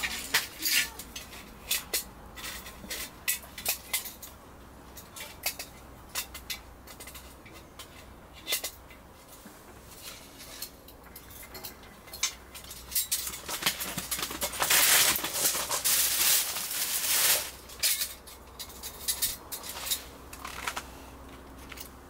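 Camp cookware and utensils clinking and knocking as they are handled, with a few seconds of loud hissing near the middle.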